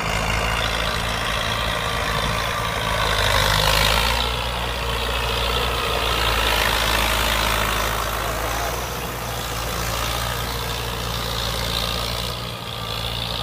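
Fiat 640 tractor's diesel engine running hard under load as it pulls a rotary tiller through wet paddy mud, a steady deep engine note with the churning noise of the tiller on top. The engine note shifts slightly a few seconds in and again near the end.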